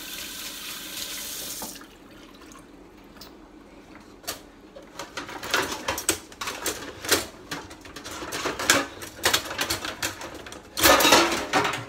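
Kitchen tap running, shut off about two seconds in. Then repeated clinking and clattering of dishes and metal cutlery as a spoon is dug out, loudest near the end.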